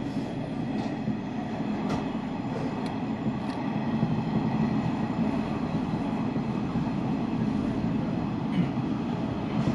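Hanshin Railway limited express train running along the line, heard from inside the cab: a steady rumble of wheels and running gear, with a few faint clicks.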